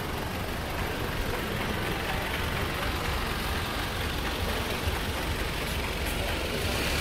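Steady city street noise with a motor vehicle engine running at idle, a low rumble under the general din.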